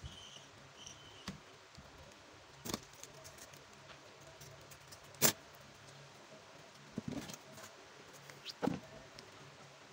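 Hand-work noises on a workbench: a few scattered sharp clicks and knocks as a small tin and a pair of scissors are handled and set down, the loudest about halfway through.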